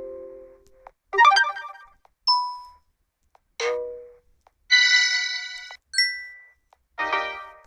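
A run of short Vsmart Live smartphone alert tones played one after another: about six brief electronic chimes, dings and little jingles, each separated by a short silence. One of them, about halfway through, is a longer held chord.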